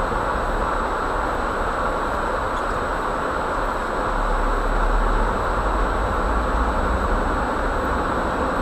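Jeep driving along a snow-covered road, heard from inside the cabin: a steady rumble of engine and tyre noise, swelling slightly about four seconds in.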